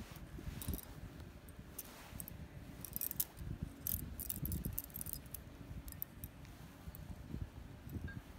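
Rustling and soft bumps of a kitten playing with a hand on bedding, with light metallic jingling clicks around the middle from the gold bracelets and rings on the hand.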